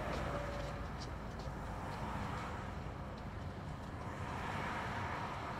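Steady rumble of vehicle traffic, with a few faint ticks.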